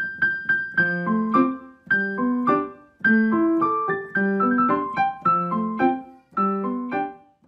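Background piano music: a bright melody over chords, in short repeating phrases of struck notes that ring and fade.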